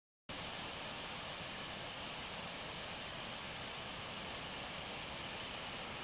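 Steady rushing hiss of a small waterfall, even and unchanging.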